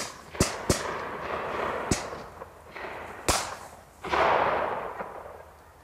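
A volley of shotgun shots, about five sharp cracks in quick succession, each trailing off in echo, followed about four seconds in by a longer swell of noise that fades away.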